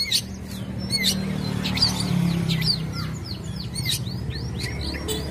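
Long-tailed shrike (cendet) singing busily: a quick string of short, sharp chirps and downward-sweeping whistled notes, over a low steady hum.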